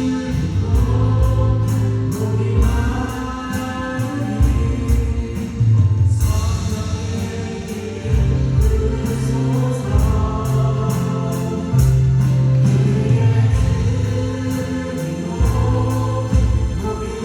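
Worship band and singers performing a gospel praise song: several vocalists singing together over keyboards, acoustic guitar and drums with a steady beat.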